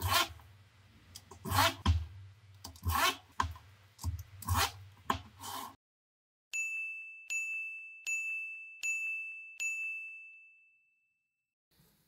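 A series of sharp clicks, one every second or so. After a short gap come five identical high, bell-like dings about three-quarters of a second apart, and the last one rings out.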